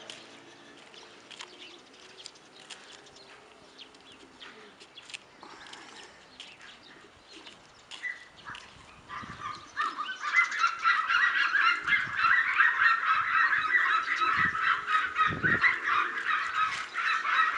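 A dense, loud chorus of bird calls, many short repeated honks or cries at once like a flock of fowl, breaks out about ten seconds in and carries on. Before that there are only faint scattered clicks.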